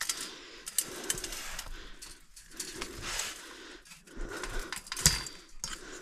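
Rustling and crunching movement with sharp metallic clicks and rattles against a galvanised wire-mesh aviary panel. The loudest is a single knock about five seconds in.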